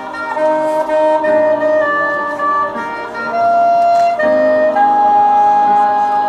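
Marching band playing, woodwinds and brass moving through held chords that change every half second or so, then settling on a long sustained note near the end.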